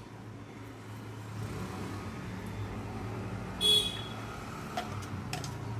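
Steady low rumble of road traffic outside, with one short high toot of a vehicle horn a little over halfway through.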